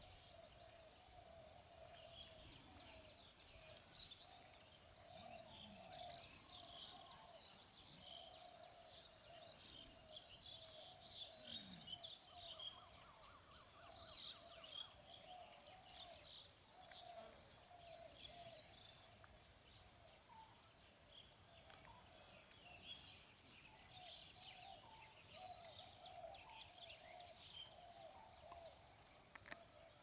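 Faint field ambience: small birds chirping and twittering, with a run of repeated lower calls and a steady high-pitched pulsing whirr.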